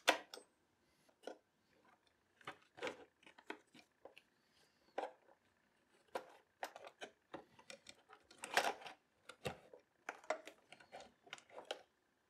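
Scattered light clicks and knocks of parts being handled and fitted: a PVC pipe, washers and bolts against a plastic ammo box, with a denser run of knocks about eight and a half seconds in.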